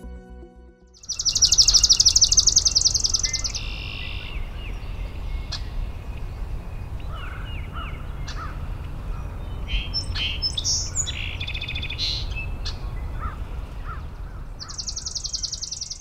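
Swamp sparrow singing its trill, a fast run of repeated high notes, about a second in and again near the end. Between the trills other birds call, including red-winged blackbird and American crow, over a low background rumble.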